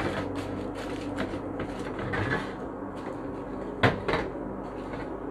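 Glass jars handled on a stainless-steel drainboard: light rustling and taps as the paper covers are smoothed, then a sharp knock about four seconds in as a jar is set down, over a steady low hum.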